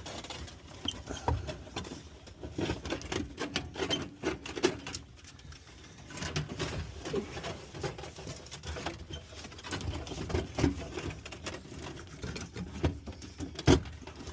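Hands pulling and handling old wiring and parts in a car's dash: a steady scatter of irregular clicks, small knocks and rustling, with one sharper knock near the end.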